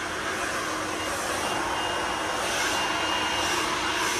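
Handheld blow dryer running steadily, blowing air over hair freshly set with a curling iron to cool the curls so they hold. It gets a little louder about halfway through.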